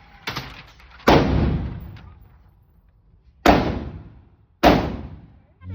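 Gunshots on an indoor firing range: a fainter report, then three loud ones about a second, three and a half and four and a half seconds in, each ringing off with an echoing tail.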